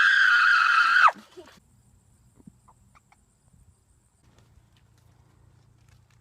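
A loud, high-pitched held cry that ends with a falling pitch about a second in, followed by faint scattered ticks over a low hum.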